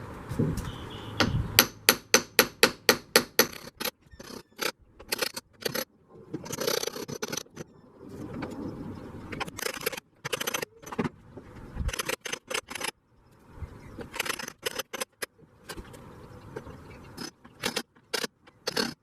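Hand work on the Jeep's metal windshield frame: a quick run of sharp metallic clicks and taps about two seconds in, about five a second, then scattered clusters of clicks and scraping.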